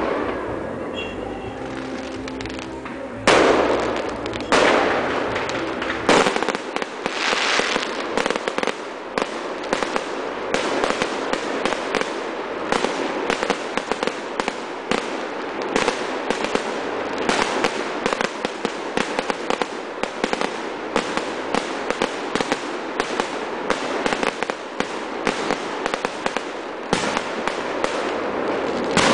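Fireworks display: a few loud separate bangs in the first six seconds, then a dense, rapid crackling of many small pops that keeps going.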